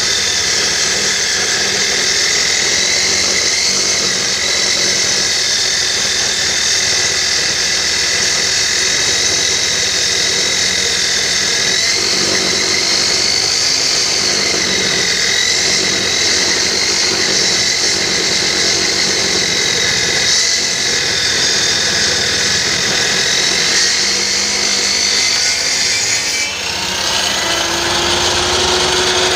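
Electric circular saw running with a steady, high motor whine that wavers slightly in pitch: the saw working again after the broken wire to its carbon-brush connector was repaired. The sound changes about 27 seconds in, and a lower tone rises.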